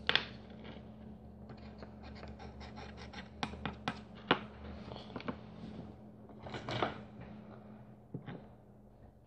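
Hands working small electronic parts and wires on a workbench: scattered light clicks and scratches with a few sharper taps, over a steady low hum.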